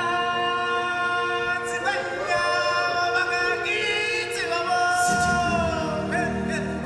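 A group of stage singers singing together in harmony, holding long notes that change every second or two, with one voice gliding down about five seconds in.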